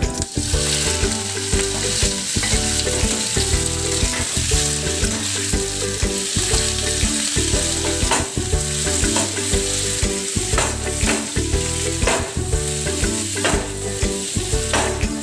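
Sliced onions dropped into hot oil with whole spices in a frying pan, sizzling from the moment they land and frying steadily as they are stirred. Spatula strokes scrape the pan several times in the second half.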